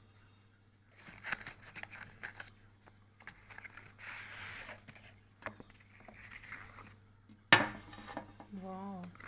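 Cardboard perfume box and wrapping being handled: scattered rustling and scraping as the bottle is slid out of the box. About seven and a half seconds in, a single sharp knock as the glass perfume bottle is set down on a glass tabletop.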